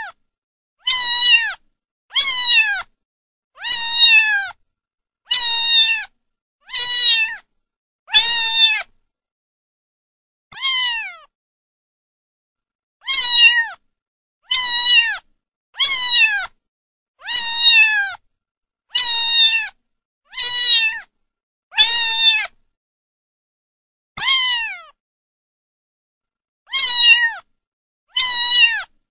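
Domestic cat meowing over and over, about one meow every second and a half with a few longer pauses. Each meow is a short call falling in pitch, with dead silence between calls.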